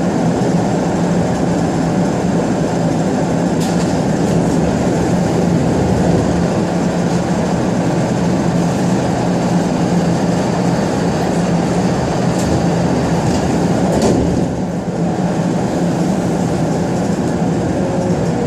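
Steady running and equipment noise heard inside a Jeumont metro car as it pulls into a station and stands at the platform, with a strong low hum throughout. The noise drops slightly about fourteen seconds in.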